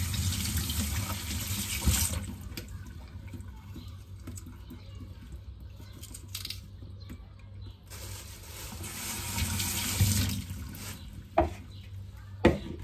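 Kitchen tap running into the sink in two stretches, near the start and again from about eight seconds in, with a couple of sharp clinks near the end.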